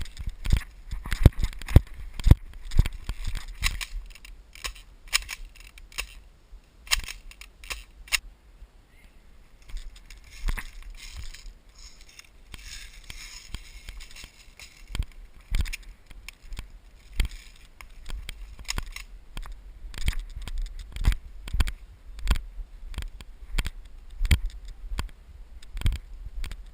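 Irregular clicks, knocks and crunching with rustling, a few to the second at times, from an airsoft player moving on foot with gear close to the microphone, over a low rumble of handling and wind.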